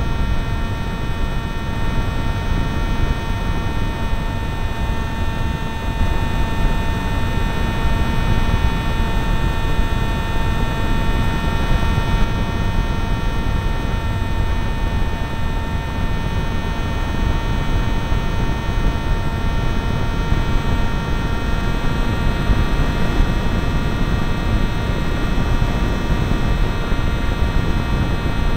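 Motor and propeller of a Zagi v4 RC flying wing, recorded by its onboard camera in flight: a steady whine of several held tones over a low rushing noise.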